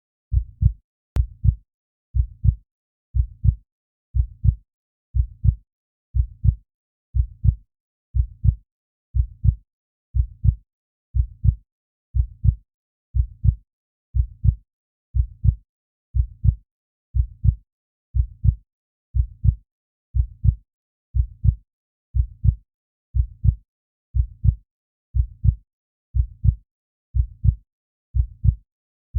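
Human heartbeat, a slow, steady lub-dub: a low double thump about once a second, the first beat of each pair louder than the second.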